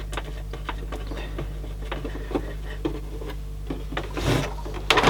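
Small clicks and taps of a CD player's case and little plastic nut fittings being handled and fitted during reassembly, with a louder knock and scrape near the end.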